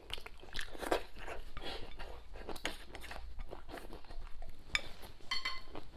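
Close-up eating sounds: a person biting and chewing food, with wooden chopsticks tapping and scraping a ceramic bowl. Near the end come a few ringing clinks of chopsticks against the bowl.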